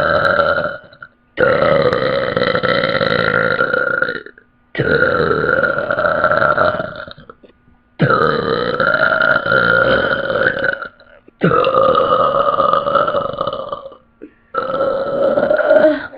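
A girl's long, loud, drawn-out burps, one after another: about five, each lasting two to three seconds and held at a fairly steady pitch, with short pauses between.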